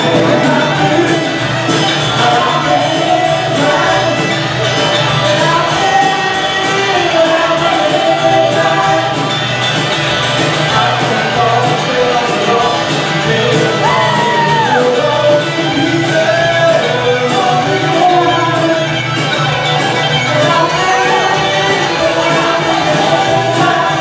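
Live rock band playing, with a woman singing lead, her voice gliding between held notes, over acoustic and electric guitars and a steady beat.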